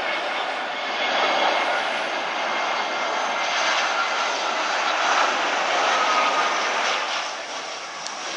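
Jet airliner's engines at take-off thrust close by, a loud noisy rush with a faint steady whine, fading near the end.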